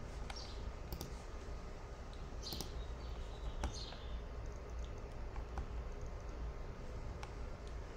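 A few scattered, light clicks and taps from a computer pointing device, over a low steady hum.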